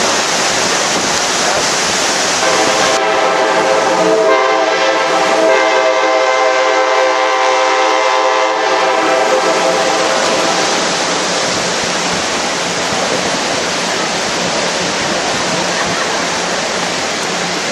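Diesel locomotive horn sounding one long, steady chord of about eight seconds, starting a couple of seconds in, over the constant rush of river rapids.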